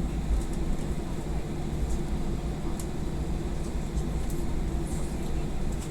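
Steady low rumble of an airliner cabin as the plane taxis on the ground.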